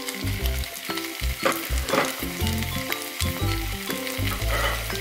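Thinly sliced potatoes and green chillies frying in oil in a pan, sizzling steadily with a few crackles, under background music with a bass line.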